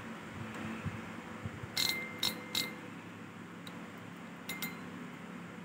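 Light metallic clicks from a spinning fishing reel being handled: three quick clicks with a short ring a little before the middle, then a few fainter ticks.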